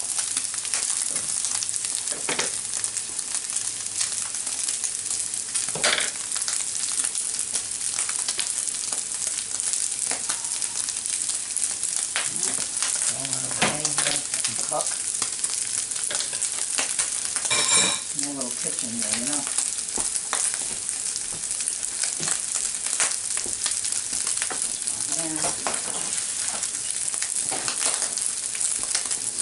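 Ground beef and sliced onions frying in butter and tomato paste in a nonstick skillet: a steady crackling sizzle. A spoon stirs through the pan now and then, with a brief higher-pitched scrape about 18 seconds in.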